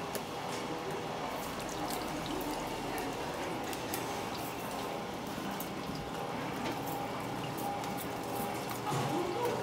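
Jakoten fish cakes sizzling and crackling in hot oil in a chain-conveyor deep fryer, a steady stream of tiny pops, with a faint steady machine hum underneath.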